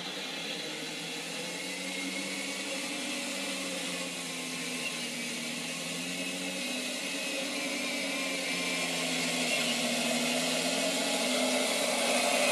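Simulated tank-engine sound from a Clark TK24S sound unit, played through the speaker of a Torro Tiger 1 RC model tank as it drives, its pitch rising and falling a little. It is mixed with the whir of the model's drive motors and tracks, and grows louder as the tank comes closer.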